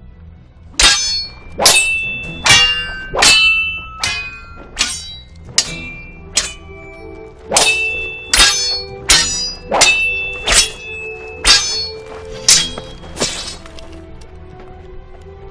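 Steel swords clashing in a duel: about sixteen ringing metal-on-metal clangs, roughly one every 0.8 s, with a short break midway, ending a little before the end. Background music plays underneath.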